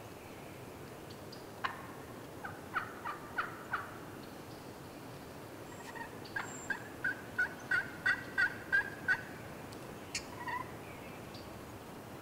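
Wild turkey yelping: a loose group of about six sharp yelps, then a longer, evenly paced run of about ten at roughly three a second.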